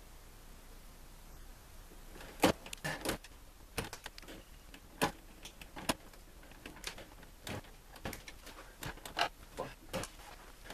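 Wire strippers clicking and snapping as insulation is stripped off the ends of electrical wires, with a run of irregular sharp clicks starting about two seconds in.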